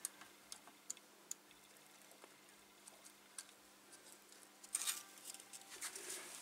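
Faint scattered ticks and crackles from a soldering iron melting solder onto a capacitor lead at a tag strip in a tube radio chassis, with a brief louder crackling burst about five seconds in, over a faint steady hum.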